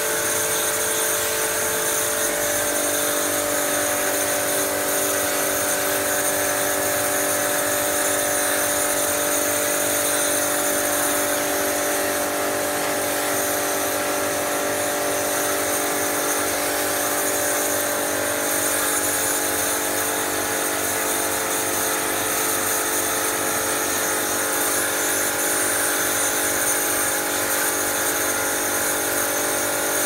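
Electric pressure washer running steadily, its motor humming under the hiss of the water jet spraying into an air-conditioner's blower and coil.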